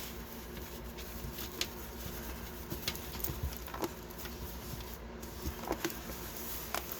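Scattered soft crackles and taps of a rolled diamond-painting canvas being handled and unrolled by hand.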